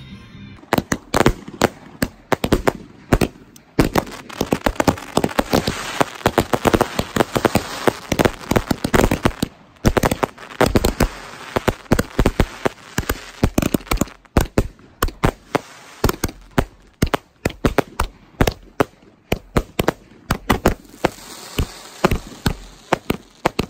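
Fireworks display going off: a rapid, continuous string of sharp bangs with crackling between them.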